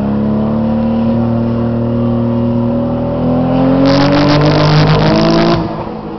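Nissan RB25DET turbocharged straight-six pulling hard in gear, its note rising steadily. About four seconds in it turns rough and crackly for under two seconds, then the revs drop: the engine breaking up from a misfire under load, which the owner traced to bad coil packs.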